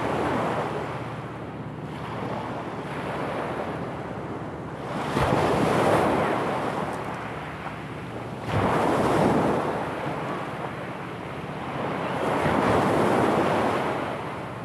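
Small sea waves breaking on a pebble beach, coming in repeated surges about every three to four seconds, two of them starting with a sudden crash.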